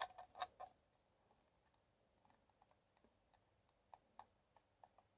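Small metal clicks and taps of tools working on a rebuildable vape atomizer's deck as the coils are fitted: a quick cluster of four or five clicks at the start, then a few faint ticks near the end.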